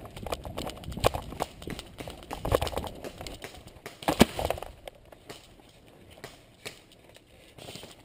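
Running footsteps on a dirt path with carried gear knocking and rattling: quick irregular thuds for the first few seconds, easing to a few scattered knocks as the runner stops.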